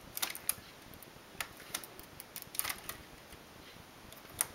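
Light, scattered metal clicks from a hand transfer tool lifting stitches onto neighbouring needles of a knitting machine's metal needle bed, about seven ticks spread unevenly over the seconds.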